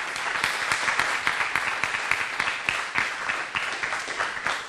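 Audience applauding: many overlapping hand claps, dying away near the end.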